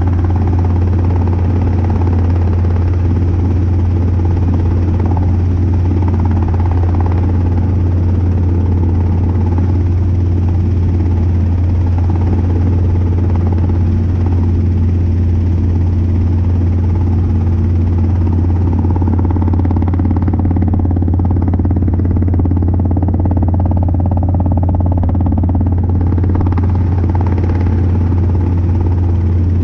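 Robinson R22 helicopter in flight: its engine and rotors making a steady low drone that does not change.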